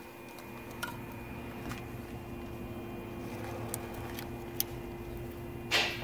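Small plastic clicks as a wiring connector is handled at the ignition lock cylinder, then one louder short snap near the end as the connector is pushed on, over a steady low hum.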